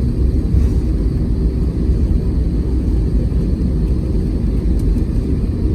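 Steady low rumble of an airliner's engines and wheels, heard from inside the cabin as the plane rolls along the ground.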